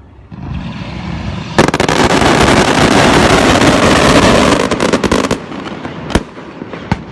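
Fireworks going off: a rising hiss, then about four seconds of dense, rapid crackling bangs that stop abruptly, followed by two single sharp cracks near the end.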